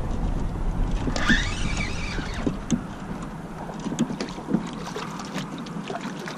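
Water sloshing and splashing around a kayak, with scattered light knocks and clicks, as a hooked spadefish is brought in. A low rumble eases off about halfway through.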